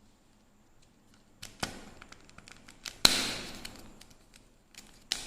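Plastic candy wrapper crackling and tearing: a few sharp crackles with small clicks between, the loudest tear about three seconds in, trailing off over about a second.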